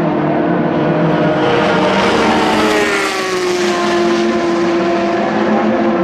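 Vanwall Vandervell hypercar's Gibson V8 engine running at high revs on track, its pitch falling about halfway through as it passes by.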